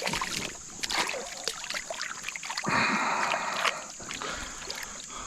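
Water splashing: a few small splashes, then a longer, louder splash about three seconds in.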